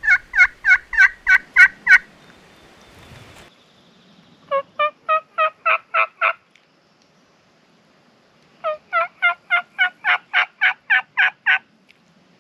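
Turkey yelping: three runs of loud, evenly spaced yelps, about three a second, with pauses between runs. The last run is the longest, about a dozen notes.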